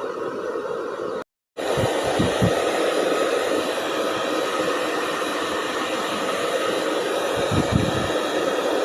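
Hair dryer blowing steadily, cut off by a brief gap of silence about a second and a half in, with a few low thumps around two seconds in and near the end.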